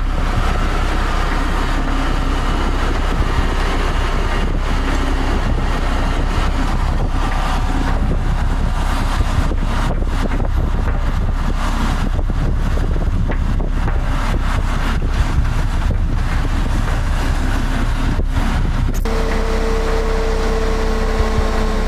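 Diesel engines of heavy-haul tractor trucks running as they pull a Cat 797F mining dump truck on modular trailers, a steady rumbling drone with wind noise. Near the end it cuts off suddenly and a steady single tone takes over.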